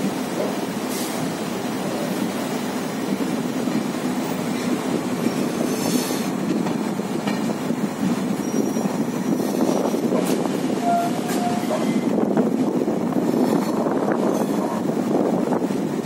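Train running on the track, heard from aboard: a steady rumble of wheels on rails, with a few sharp clicks and a brief thin whine about eleven seconds in.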